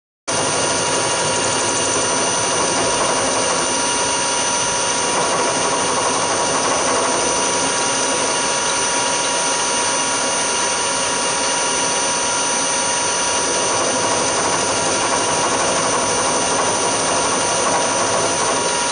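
Milling machine spindle running with an end mill side-cutting a steel block, a steady whine with several held tones that starts abruptly and holds an even level.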